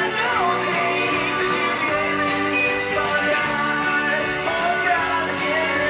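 Music with guitar and a singing voice, playing steadily at a fairly loud level.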